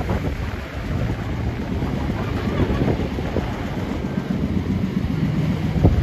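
Wind rumbling on the microphone over a low steady hum, with a brief thump near the end.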